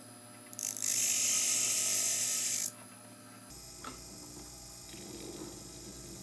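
A jeweler's bench power tool runs for about two seconds, loud and high-pitched, while the setter works on the new head. A low steady hum continues under it.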